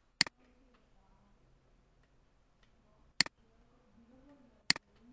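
Three sharp computer mouse clicks, each a quick double click of press and release: one just after the start, one about three seconds later, and one a second and a half after that.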